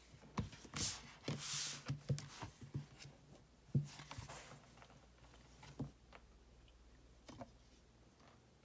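Hands handling things on a desk: a tablet in a folio case picked up and set down and a tumbler lifted off its coaster, with light knocks and short sliding rustles, the sharpest knock a little under four seconds in.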